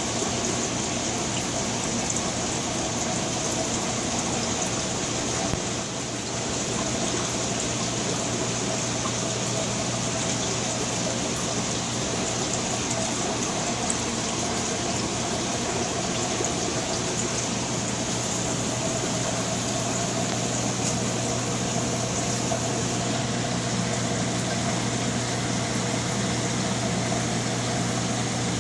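Saltwater aquarium system running: a steady rush of circulating water with a constant low pump hum.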